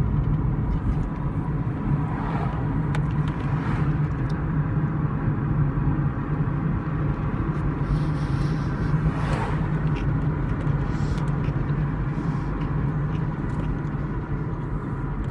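Steady low rumble of a car heard from inside the cabin, with a few faint rustles over it.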